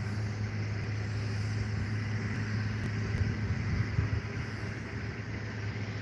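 Steady low hum of an engine running, under an even outdoor noise.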